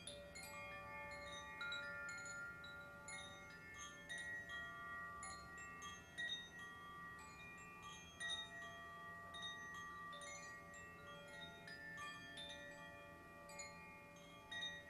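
Wind chimes ringing softly: many clear tones struck in quick, irregular succession, overlapping and dying away over a second or two.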